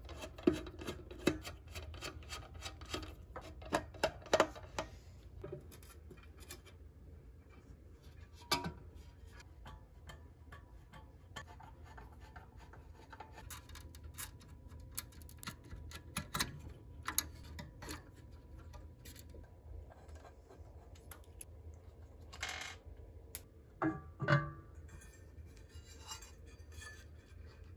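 Screwdriver, wiring connectors and a metal heatsink being handled while an amplifier module is taken out of a power amplifier: a string of sharp clicks, knocks and scrapes, densest in the first few seconds and again near the end, over a faint steady low hum.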